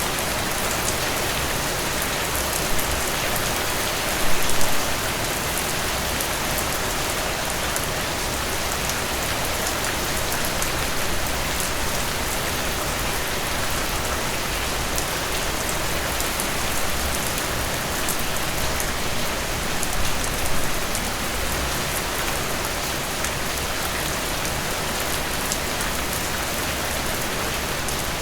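Steady rain falling on a surface, a dense even hiss of drops with a few slightly louder heavier splashes about four seconds in and again near twenty seconds.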